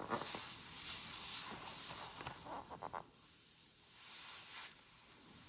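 Hiss of a smoke-test setup pressurizing a nitrile glove stretched over an engine's throttle body, with rubbery rustling and a few squeaks about two to three seconds in as the ballooned glove is squeezed and handled.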